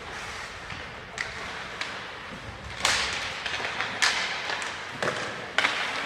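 Ice hockey play: sharp cracks of sticks and puck at irregular intervals, about five in all, some followed by a second-long hiss of skate blades on ice, echoing in the rink.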